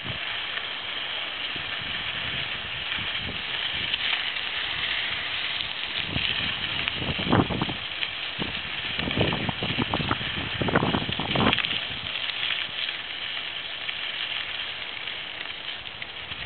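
Bicycle rolling over a sandy, bumpy dirt track, a steady crunching rush of tyres with wind on the microphone. A run of knocks and rattles comes from about six to twelve seconds in as the bike jolts over ruts.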